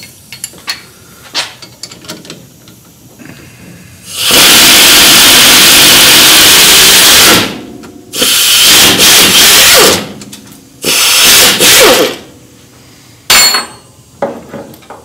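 Power wrench with a 15 mm socket spinning on a sway bar end link nut, run in four loud bursts: about three seconds, two seconds, one second, then a brief blip, after a few light clicks of the socket going onto the nut.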